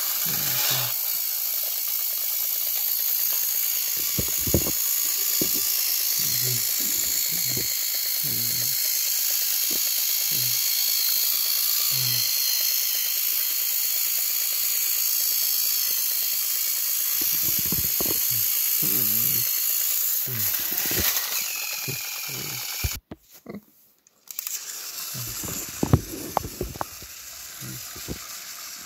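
Battery-powered Thomas & Friends toy trains running on plastic track: a steady high whirring hiss of small motors and gears, with soft low knocks about once a second. The sound cuts off abruptly about 23 seconds in, then a few quieter clicks follow.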